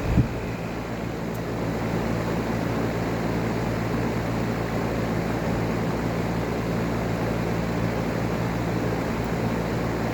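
2006 American Standard Allegiance 13 central air conditioner's outdoor unit running just after start-up: a brief knock right at the start, then the compressor's steady low hum under the even rush of the condenser fan.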